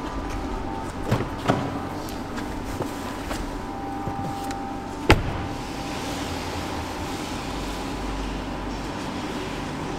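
A BMW car door shutting with one sharp thump about five seconds in, over the steady hum of an underground car park. A couple of lighter knocks come about a second in.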